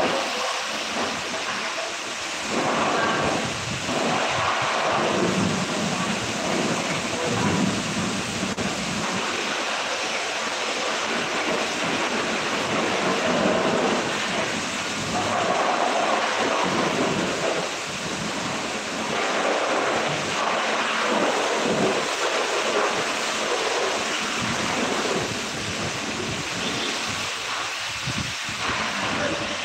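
High-pressure car wash spray: a jet of water hitting a pickup truck's body and wheels, a continuous rushing hiss that swells and fades every few seconds as the jet moves.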